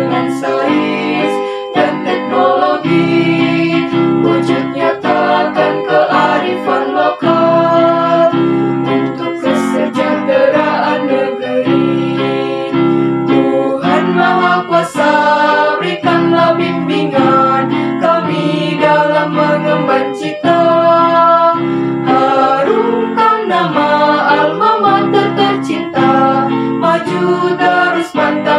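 A small group of men and women singing a march in Indonesian, with instrumental accompaniment.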